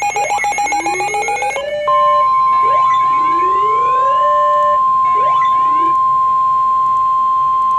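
Emergency alert sounds: a rapidly pulsing alarm tone over a siren sweeping upward in pitch. About two seconds in, a steady single-pitch alert tone takes over and holds, while the siren rises twice more beneath it.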